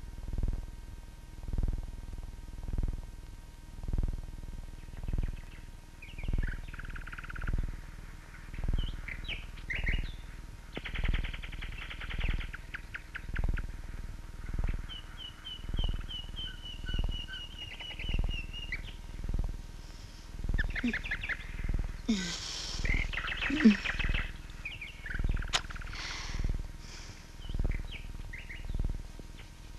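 Night ambience: a soft low thud repeating about every second and a quarter, like a slow beat, with trains of high chirping calls from small night creatures over it from about six seconds in, busiest a little past the twenty-second mark.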